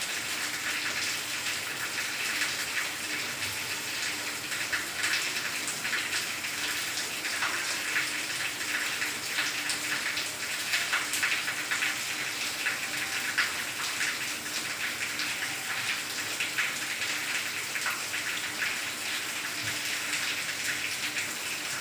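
Steady rain falling on leafy plants: an even hiss with many small drop hits ticking through it.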